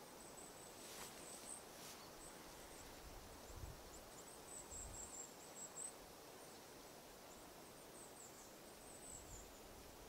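Near silence: quiet outdoor ambience with faint, high-pitched chirping in short runs on and off, and two soft clicks about a second apart near the start.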